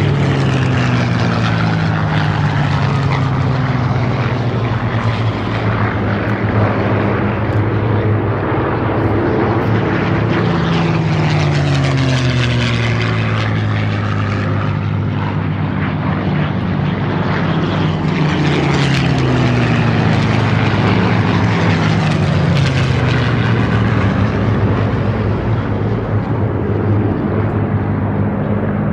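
Several Supermarine Spitfires with V12 piston engines pass in turn, running at low level with a steady engine drone. The pitch drops as each aircraft goes by, four times over.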